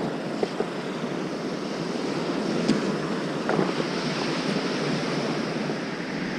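Small surf breaking steadily on a sandy beach, with wind on the microphone. A few light clicks come through, the clearest about two and a half and three and a half seconds in.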